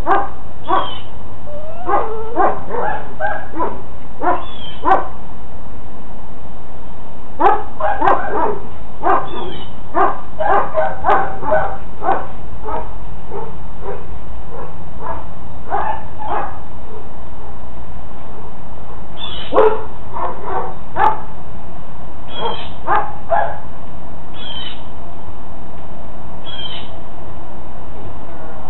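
Young female Belgian Malinois barking repeatedly, in quick runs of several barks with short pauses between.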